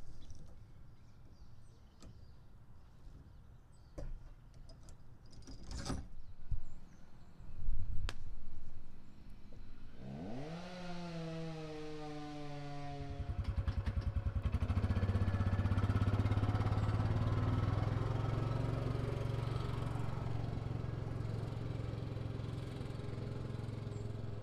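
A few scattered knocks and clatters, then about ten seconds in an engine comes in, its pitch rising sharply and sliding back down, and settles into running steadily with a low, pulsing hum.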